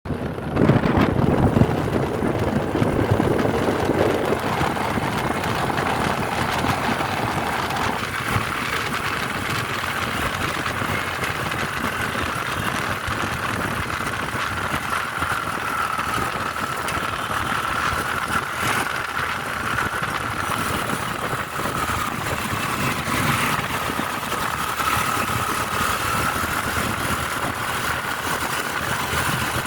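A vehicle on the move: steady engine and road noise, louder for the first few seconds. A thin high whine runs over it from about twelve seconds in.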